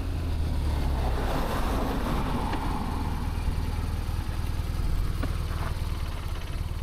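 BMW R1200RT boxer twin running steadily at low road speed, with wind and road noise over it; a brief swell of rushing noise rises and fades about one to three seconds in.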